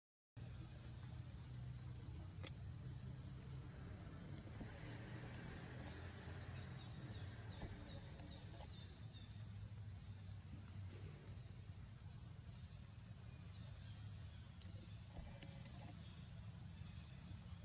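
Steady high-pitched insect chorus with two trilling layers, the lower one pulsing about once a second, over a low rumble. One sharp click about two and a half seconds in.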